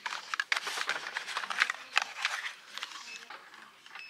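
Small cardboard toothpaste boxes rustling and clicking as they are taken off a shelf and handled, a run of crackles that is busiest in the first couple of seconds and then thins out.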